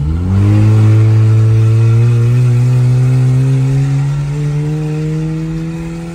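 Volkswagen Jetta with a straight-through exhaust accelerating hard in second gear, heard from inside the cabin. The engine note jumps up as the throttle opens just after the start, then climbs steadily as the car pulls.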